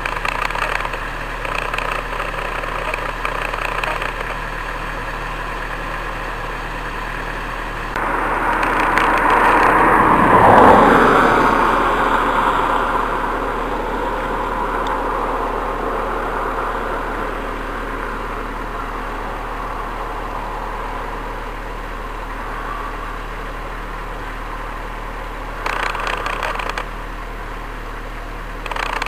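Quad-bike (ATV) engines running, swelling louder for a few seconds about ten seconds in.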